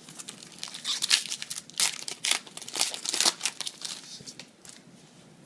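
Foil wrapper of a trading-card booster pack crinkling and tearing as it is opened by hand: a quick run of crackles that thins out after about four seconds.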